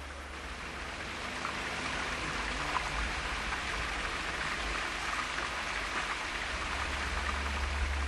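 Steady rush of water spilling over a small concrete weir in a narrow stream channel.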